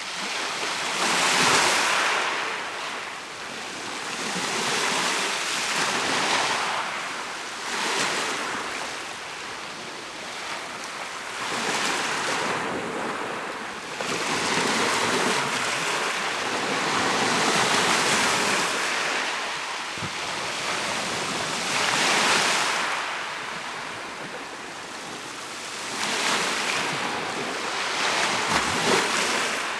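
Mediterranean sea waves breaking and washing onto the shore, the surf swelling and falling away every few seconds.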